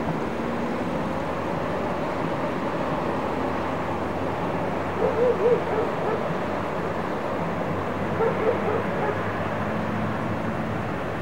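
DR class 50 steam locomotive pulling away, heard from afar as a steady rushing of exhaust and steam. Two short bouts of wavering calls break in, about five and about eight seconds in.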